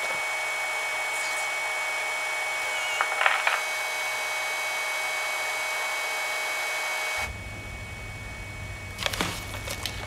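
Steady hiss with a thin high whine, typical of old camcorder tape playback. It cuts off suddenly about seven seconds in, leaving a low room hum and a few light clicks and rattles as cables are handled on a table.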